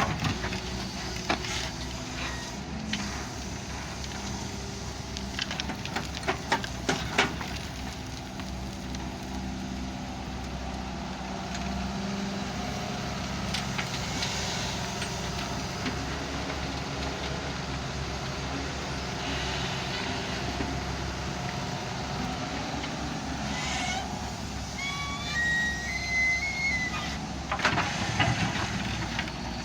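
Excavator's diesel engine running steadily, with a few sharp clanks about six or seven seconds in and some short high chirps near the end.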